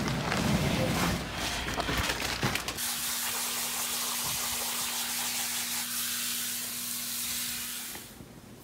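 A steady hiss with a faint low hum under it, setting in about three seconds in and stopping shortly before the end. Before it comes a muffled rumble with a few knocks.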